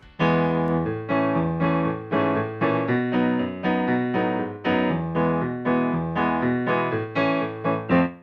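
Piano music: chords struck in a steady rhythm about twice a second, each dying away before the next.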